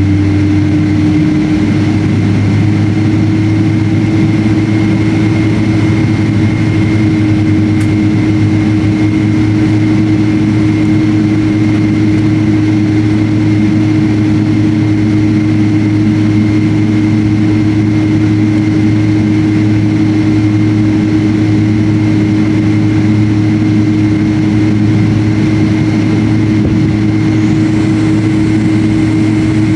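Jet airliner engines heard from inside the passenger cabin: a steady, loud drone with a constant low hum and a faint high whine, unchanging throughout.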